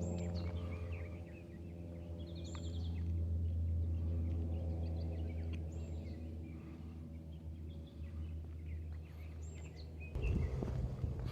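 A few birds chirping now and then over a steady low droning hum. About ten seconds in, the hum stops and louder irregular knocking and rustling begins.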